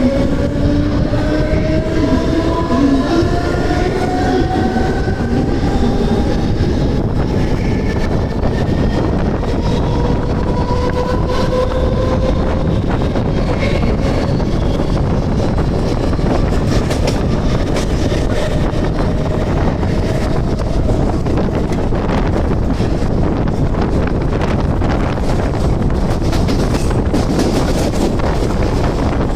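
Mumbai suburban electric local train accelerating away from a station: the traction motors give a rising whine over the first dozen seconds, under steady rumbling wheel and rail noise. The train then runs on at speed with clicks from the rail joints.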